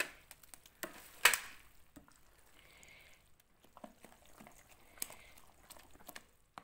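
A spoon stirring thick fermented ragi batter in a glass bowl: soft wet squishing with a few sharp clicks, the loudest about a second in.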